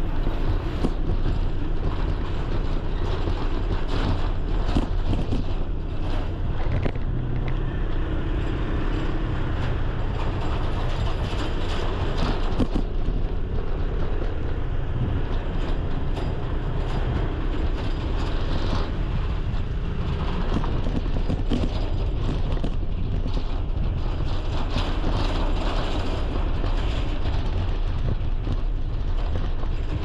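Steady rumble of vehicle and road noise, dense and unbroken.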